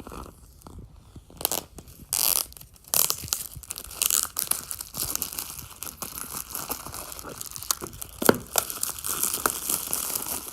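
Product box packaging being torn and crinkled open by hand: an irregular run of sharp crackles and rips.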